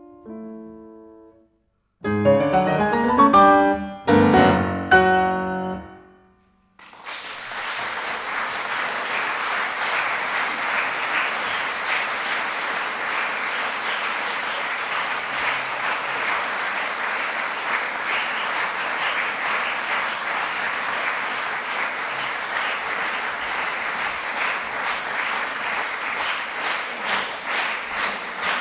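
Grand piano ending a classical piece: a soft phrase fades out, then loud final chords ring out and stop. After a moment's silence an audience breaks into steady applause, which near the end falls into rhythmic clapping in unison.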